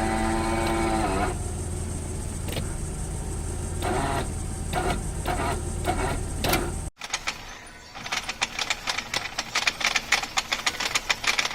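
Car's automatic transmission running with a damaged internal gear. A steady low drone carries a groaning whine that fades about a second in, with a few knocks. After a sudden cut comes a fast, uneven rattle of clicks and knocks, typical of a worn or broken gear inside the gearbox.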